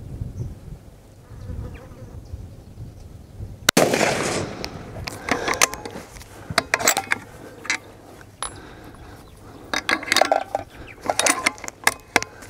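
A single shot from a .300 PRC Bergara B14 HMR Wilderness bolt-action rifle with a muzzle brake, about four seconds in, with a short ringing after it. Over the following seconds come a string of sharp metallic clicks and clacks as the bolt is worked between shots of the group.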